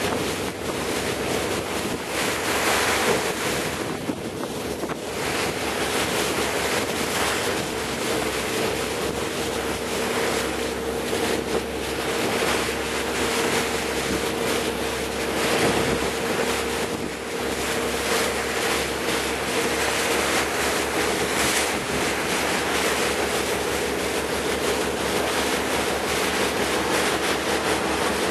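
Wind buffeting the microphone over the wash of the open sea, with a steady low engine hum underneath.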